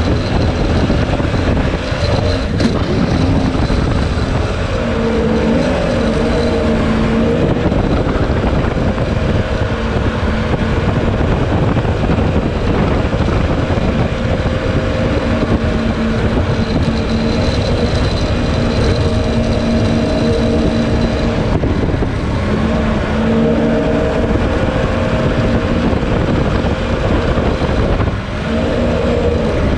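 Jet boat engine running under way, its pitch stepping up and down several times with the throttle, over the rush of water and wind past the hull.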